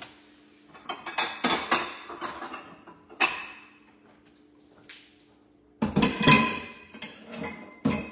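Dishes and kitchen utensils clinking and knocking on a kitchen counter in several short bursts of clatter, the loudest about six seconds in, over a faint steady hum.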